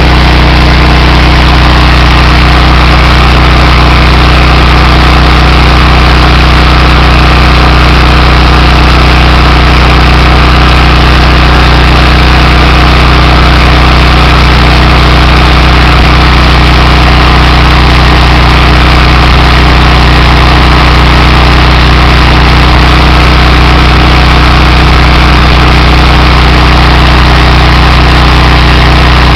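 Honda GX390 single-cylinder engine on a pressure washer, running loud and steady with no change in speed.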